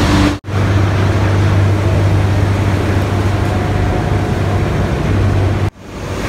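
Sugar mill machinery running: a loud, steady industrial din over a low hum. The sound drops out abruptly twice, about half a second in and near the end.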